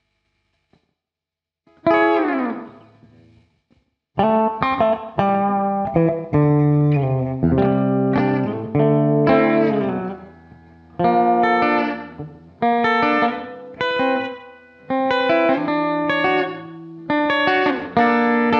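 Electric guitar played through Guitar Rig amp-simulation software as a tone test. A single chord is struck about two seconds in and left to ring out. From about four seconds a steady run of strummed chords follows, each ringing and dying away.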